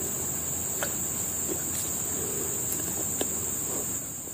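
Insects buzzing in one steady, high-pitched drone, with a few faint clicks.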